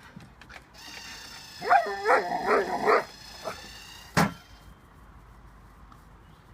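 A dog gives four short barks in quick succession, then a single sharp knock.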